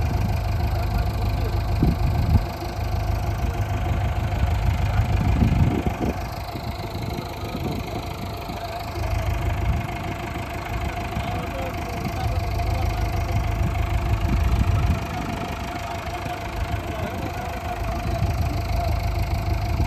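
Diesel engine of heavy machinery running continuously with a steady tone, its level swelling and easing every few seconds as it works.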